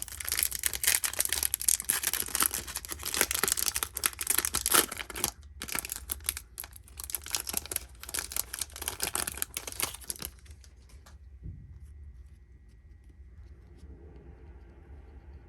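A trading card pack's wrapper being torn open and crinkled, in two long stretches with a brief pause between, stopping about ten seconds in.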